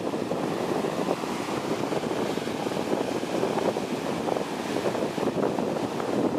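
Small sea waves breaking into foam and washing up a sandy beach: a steady rush of surf with no single crash standing out.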